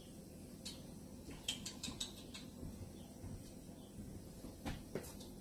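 Quiet room tone with a few faint, sharp clicks: one just under a second in, a quick run of them around two seconds, and two more near the end.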